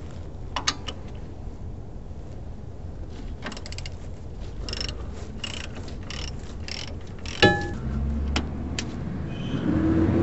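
Hand wrench working the mounting bolt of an old motorhome shock absorber: short bursts of metallic clicking about every two-thirds of a second, then one loud metal clink with a brief ring about seven seconds in.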